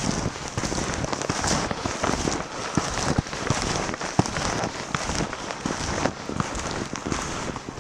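Snowshoes crunching through fresh snow in steady walking steps, with many small crackles and squeaks of packed snow.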